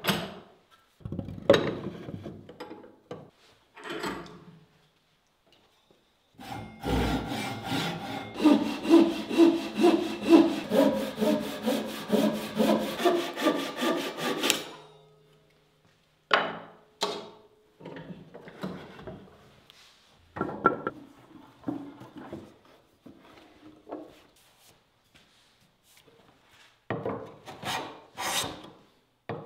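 A few short wooden knocks as a bench vise is worked, then a Japanese pull saw cutting through a board in a steady run of strokes, about two a second, for some eight seconds. Scattered short strokes follow, and near the end a Lie-Nielsen hand tool shaves the wood in quick strokes.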